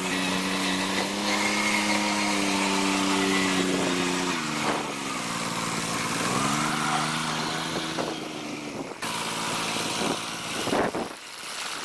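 Farm tractor's diesel engine running, its pitch dropping about four seconds in and rising again a couple of seconds later as the throttle changes, with a few knocks near the end.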